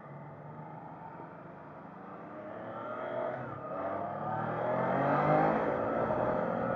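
Triumph Trident 660's three-cylinder engine accelerating under way, its note climbing in pitch and getting louder, loudest about five seconds in.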